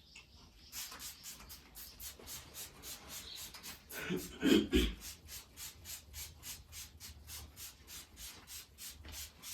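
Rapid, even rubbing or scrubbing strokes, about four or five a second, with a louder brief clatter about four seconds in that ends in a thump.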